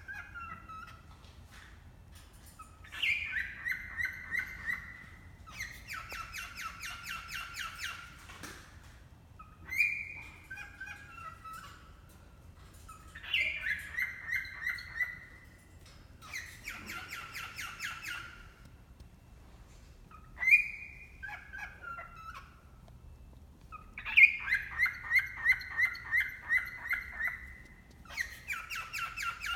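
A pet parrot mimics a rainforest bird call over and over. Each phrase is a short clear whistle followed by a fast run of rattling chirps, and a new phrase starts about every three and a half seconds.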